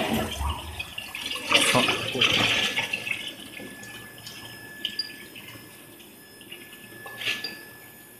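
Quench water spraying onto a hot steel shaft in an induction hardening machine: a hissing rush of water, loudest about two seconds in, that dies away by about three seconds. Then a few light metal clinks from a wrench working the workpiece clamp.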